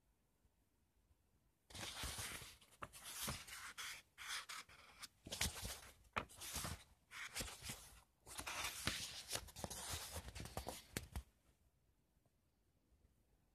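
Paper pages of a book being turned and leafed through by hand: an irregular run of rustles and flicks that starts a couple of seconds in and stops a couple of seconds before the end.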